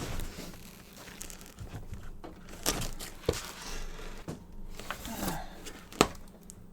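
Cardboard box and packaging of a diesel heater being handled as the heater is lifted out: crinkling and rustling with scattered knocks, a sharp knock about six seconds in.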